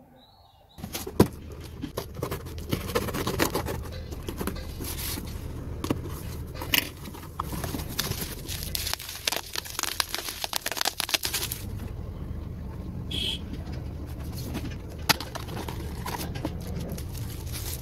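Cardboard packaging being opened and handled: rustling, scraping and sharp clicks of the shipping carton and the product box, starting about a second in, over a steady low hum.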